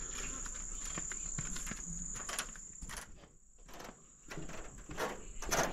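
Footsteps knocking and scuffing on a raised steel-mesh boardwalk, with creaks from the walkway, over a steady high chirring of insects. Everything drops out for about a second past the middle.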